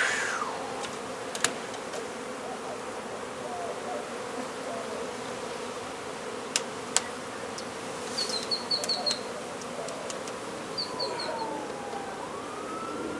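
A mass of honey bees buzzing in a steady, dense hum from an opened hive. A few sharp clicks break through it, along with two short runs of high chirps and a faint gliding tone near the end.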